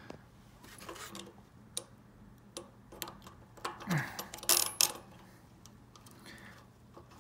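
Scattered small metallic clicks and taps as a charging coil and its bolts are handled and fitted against a small engine's crankcase, with a few louder knocks about four to five seconds in.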